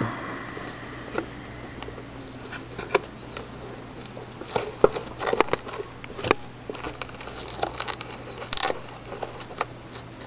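Wet cotton swab scraping and rubbing inside a Sunbeam coffee maker's water tube: irregular small scratches, clicks and taps as it works loose crunchy, hard deposits clogging the tube.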